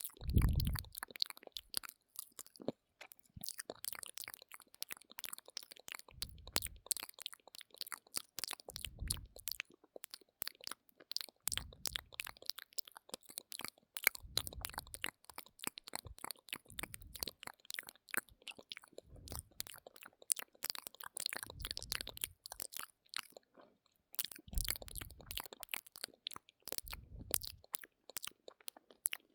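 Close-miked ASMR mouth sounds: a rapid stream of wet mouth clicks and smacks, with a low muffled sound about every two to three seconds.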